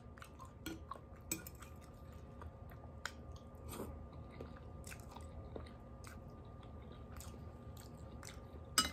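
A person chewing food: faint, irregular mouth clicks while eating, with one sharper click near the end.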